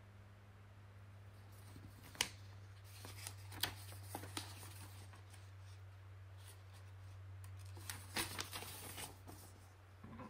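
Paper pages of a booklet manual being handled and turned, with crisp rustles and flips about two seconds in, again around four seconds, and a cluster near the end, over a steady low hum.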